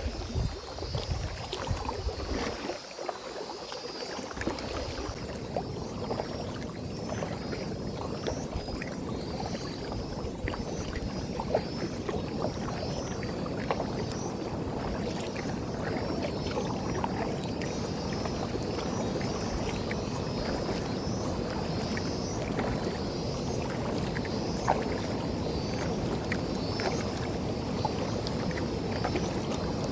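Steady rush of flowing river water, with no engine tone in it.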